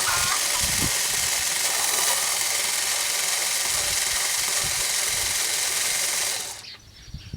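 Cordless screwdriver with a stack of 1/4-inch extensions and an 8mm socket running steadily for about six and a half seconds while loosening an air box cover bolt, then stopping suddenly.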